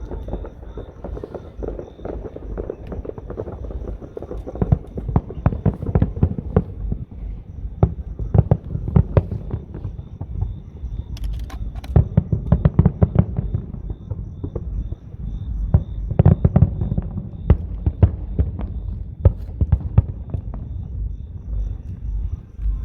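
Fireworks going off: clusters of rapid, sharp cracking pops over a steady low rumble, coming in bursts every few seconds.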